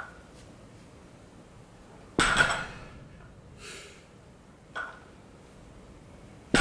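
Loaded barbell with iron plates set down hard on a rubber gym floor during fast deadlift reps: a sudden metallic clank with a short ring about two seconds in, and again right at the end. Between them a sharp breath and a light plate clink as the bar is pulled up again.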